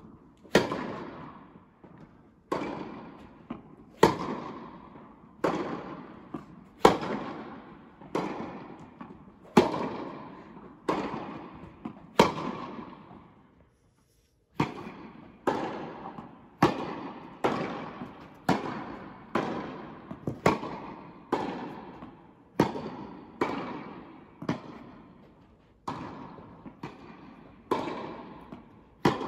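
Tennis ball being hit back and forth with rackets and bouncing on the court, sharp hits about once a second, each followed by a long echo from the indoor tennis hall. A short break near the middle.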